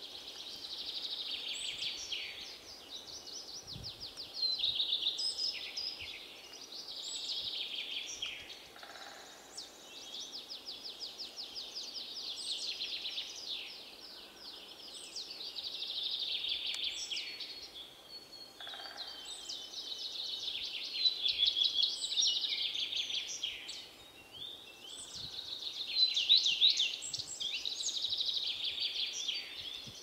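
A flock of barn swallows, many of them recently fledged young, twittering without pause: a dense high chatter of fast rattling trills and short chirps, with several birds calling over one another.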